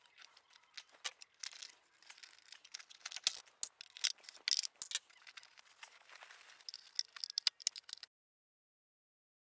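Metal tangs on a Rover P6 seat frame being prised open with a screwdriver: a busy run of small clicks, scrapes and rattles of the tool against the metal. The sound cuts off abruptly about eight seconds in.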